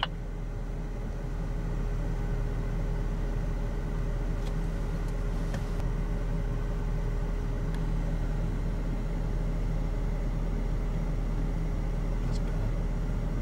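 Four-wheel-drive engine running steadily at idle, a low even drone heard from inside the vehicle's cabin, with a few faint ticks.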